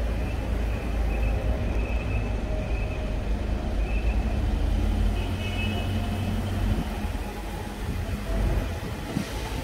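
Low, steady rumble of city road traffic and vehicle engines, easing off about seven seconds in.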